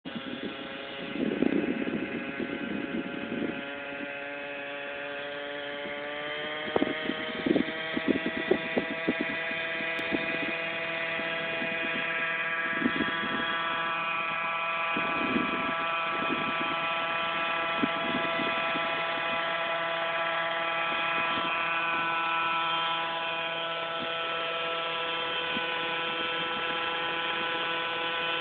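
Radio-controlled helicopter's motor and rotor spooling up, the whine rising in pitch several seconds in, then holding a steady whine as it lifts off and hovers. Loud bumps break in a few times early on and around the spool-up.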